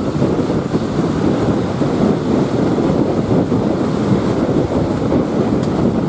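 Heavy surf breaking against rocks, with strong wind buffeting the microphone: a steady, loud rushing noise.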